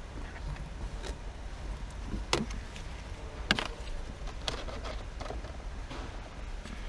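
Sharp plastic clicks and knocks from handling the cabin-filter housing behind the glove box as the new pollen filter is seated and the housing closed up, a handful of them about a second apart, over a steady low hum.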